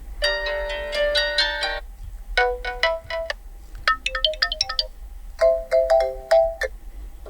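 Built-in ringtones of a Nubia RedMagic 7S phone playing: electronic melody notes, first a dense chiming phrase, then three shorter phrases of separate notes with brief gaps between them.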